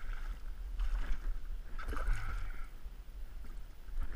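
A hooked chain pickerel splashing and thrashing at the water's surface beside a kayak after striking a topwater lure, with splashes at the start, about a second in, and again around two seconds in.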